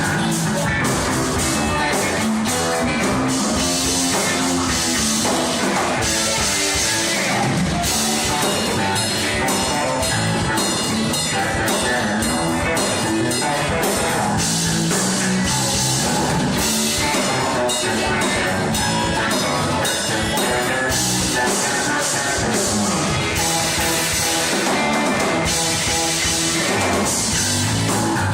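Loud rock music with a drum kit and guitar.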